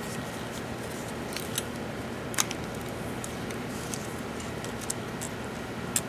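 A few light clicks and knocks of a plastic coolant flange being worked loose from a VW 2.0 engine block by hand, the sharpest about two and a half seconds in, over steady room hiss.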